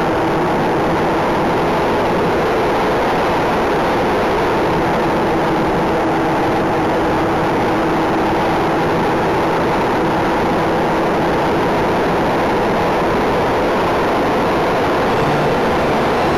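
Twin electric motors and propellers of a 1/12-scale Parkzone Mosquito RC plane running steadily in flight, heard through the onboard cockpit camera.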